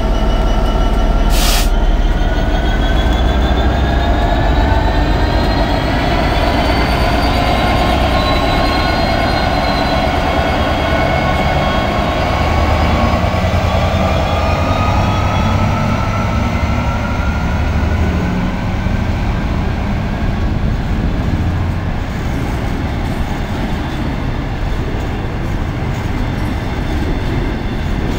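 EWS Class 66 diesel-electric freight locomotive passing slowly at the head of a train of hopper wagons. A steady heavy rumble runs throughout, with a rising whine over the first ten seconds, then the rolling rumble and clatter of the wagons going by.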